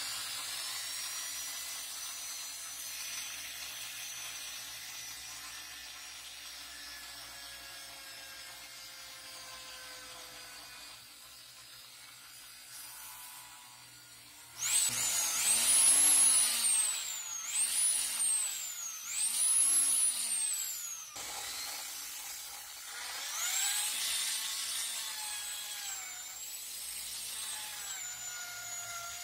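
Old rotor factory siren running: its whine slowly winds down, then it is switched on in three quick pulses, each rising and falling in pitch. It then cuts off abruptly, winds up again and holds a steady high wail.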